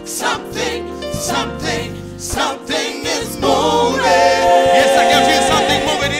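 Live gospel praise-and-worship music: a lead singer and backing vocalists singing over a band with bass guitar and keyboard. About three and a half seconds in, the voices hold a long, louder note.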